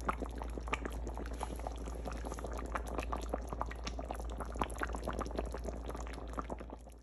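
Fish curry simmering in a pan: a dense, steady crackle of small bubbles popping in the thin gravy over a low hum, cutting off suddenly at the end.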